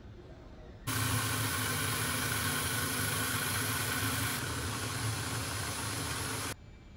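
Power drill clamped upright in a vise spinning a sanding disc, with a small rusty washer held in pliers against it to sand off the rust. The motor and the sanding hiss start abruptly about a second in, run steadily, ease a little past halfway, and cut off suddenly near the end.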